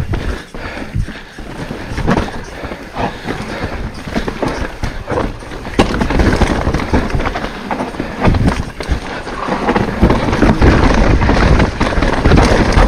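Mountain bike rolling fast down a rocky, rooty dirt trail: tyres crunching over rock and dirt, with the bike knocking and rattling on each bump. It gets louder and busier about halfway through.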